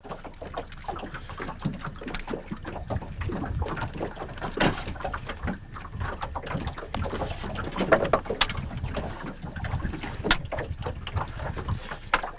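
Water slapping and lapping against the hull of a small boat, with wind on the microphone and a few sharp knocks.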